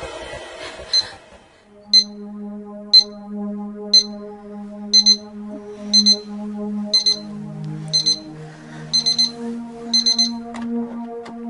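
Digital alarm clock beeping about once a second: single beeps at first, then pairs, then quicker groups of beeps near the end, over soft background music.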